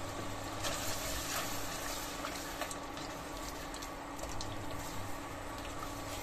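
Mutton with onions and spices frying in hot oil in a pressure-cooker pot, a steady sizzle, with a few soft clicks and scrapes from a silicone spatula stirring the meat.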